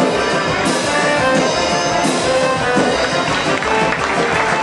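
Music playing continuously.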